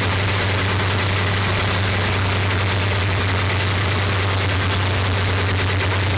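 Bristol Hercules 14-cylinder sleeve-valve radial aero engine and its propeller running steadily, with a strong unchanging low tone under the exhaust noise.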